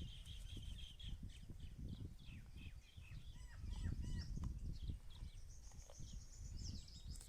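Several birds chirping and calling at once, short repeated chirps and trills with a few rising-and-falling whistles, over a low irregular rumble.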